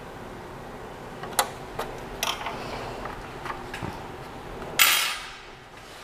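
Metal clicks and clinks as the 3D printer's metal gantry frame is handled and fitted onto its base, with a louder clatter lasting about half a second near the end as the frame is moved on the glass table.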